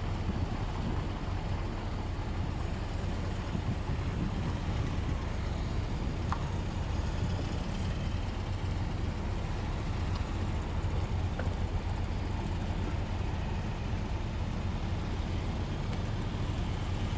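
A line of classic cars, among them a Fiat 127, MG roadsters, a BMW 02-series and a Mercedes SL, driving slowly past one after another, their engines and tyres making a steady low rumble.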